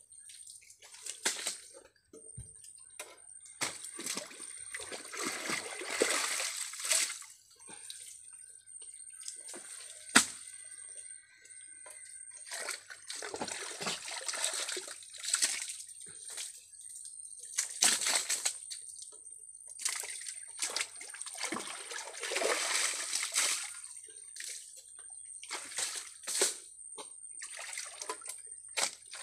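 Sloshing and splashing in wet mud and shallow ditch water as a person wades and works with their hands in it, coming in irregular bursts. A single sharp knock about ten seconds in is the loudest sound.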